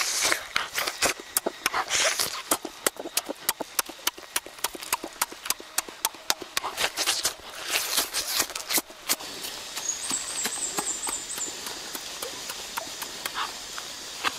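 Close-up eating sounds of roasted chicken being torn and chewed: rapid wet smacks, clicks and crunches for about nine seconds. After that the chewing goes softer against the steady rush of a stream, with a brief high chirping trill about ten seconds in.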